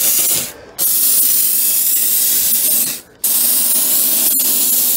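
Handheld canister steam cleaner jetting steam onto an alloy wheel to degrease it: a loud, steady hiss in three bursts, with short breaks about half a second and three seconds in.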